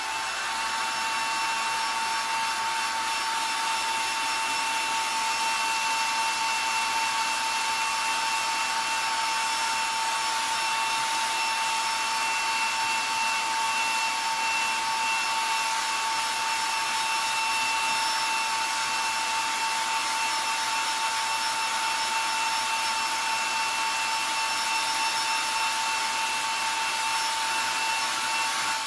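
Handheld hair dryer blowing steadily, its fan motor giving a steady whine over the rush of air, while heat-setting freshly airbrushed paint on a crankbait lure. The motor whine rises as it is switched on at the start and drops away as it is switched off at the end.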